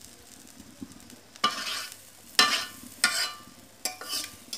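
Spatula stirring and scraping small fish in a little spice gravy in an aluminium wok, with a light sizzle. About five short scrapes come from about a second and a half in.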